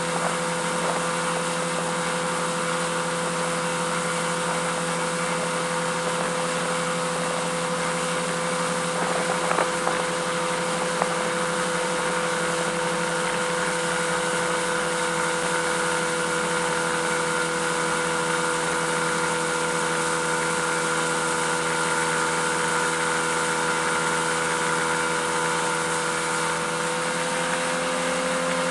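Mercury 200 outboard motor running steadily at speed while towing a barefoot water skier, with wind and rushing water over it from inside the boat. Its pitch rises slightly near the end.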